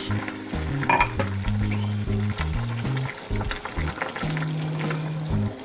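Broth with turnip greens boiling in a stainless steel pot while rice is stirred in with a wooden spoon: a busy bubbling hiss with scattered scrapes and knocks of the spoon.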